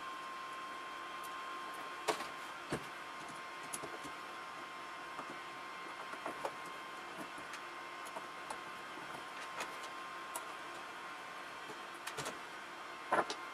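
Scattered small clicks and taps of parts and tools being handled while working on an RC crawler's front hub, irregular and a few seconds apart, the sharpest near the end, over a steady hiss with a faint high hum.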